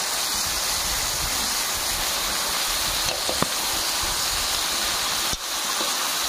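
Turkey meat sizzling steadily as it fries in a large metal wok, stirred with a metal slotted ladle that clicks against the pan twice, about three and five seconds in.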